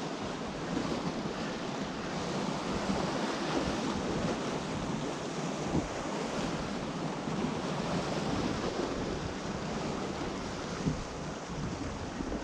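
Sea waves washing steadily against a rocky shore, with wind buffeting the microphone.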